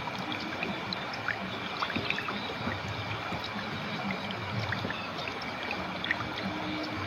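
Shallow clear river flowing steadily over stones, with a constant babble and many small splashes and gurgles.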